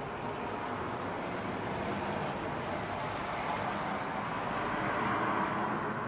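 Road traffic: a steady rushing noise that swells about five seconds in as a vehicle passes, then eases.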